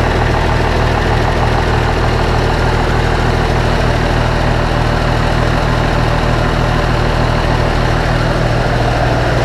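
MMZ D-260.4S2 six-cylinder turbo diesel of an MTZ-2022.3 tractor idling steadily, running freshly after an engine repair.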